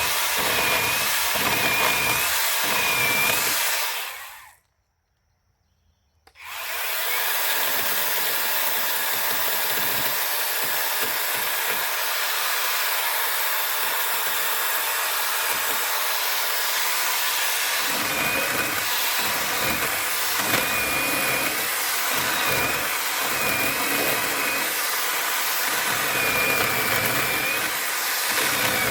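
Angle grinder running steadily, grinding away wood to smooth a saddle notch in a log, its high motor whine dipping slightly now and then. The sound drops out for about two seconds near the five-second mark, then the grinder runs on.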